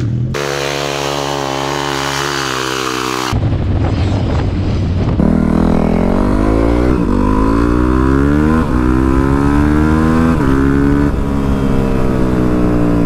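Yamaha WR450F supermoto's single-cylinder four-stroke engine under way, holding a steady note under a loud rush of wind at first. From about five seconds in it pulls through the gears, revs rising and dropping back at each of several upshifts.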